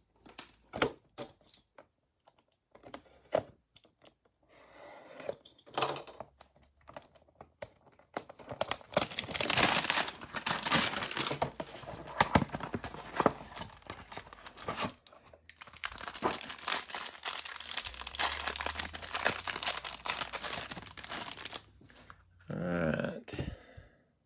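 A cardboard hanger box of football trading cards being torn open and its plastic-wrapped card stack crinkled: scattered handling clicks at first, then two long spells of dense tearing and crinkling.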